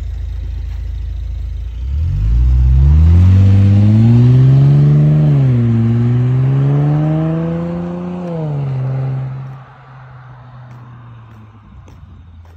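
Mercedes C350's M276 V6 through an aftermarket Becker exhaust, idling, then accelerating hard away from about two seconds in. The engine note climbs, drops at an upshift around five seconds, and climbs again. It then falls and fades quickly near ten seconds as the car pulls away into the distance.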